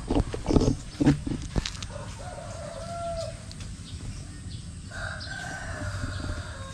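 Two rooster crows, the first about two seconds in and a longer one starting near five seconds. Several loud thumps come in the first second and a half.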